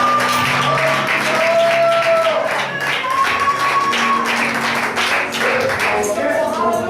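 Upbeat gospel praise music: long held notes over a quick, steady percussive beat.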